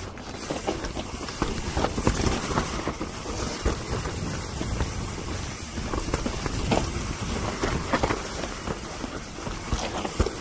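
Mountain bike riding down a dirt trail: tyres rolling over dirt and roots, with frequent knocks and clatters from the bike over the bumps, under steady wind noise on the microphone.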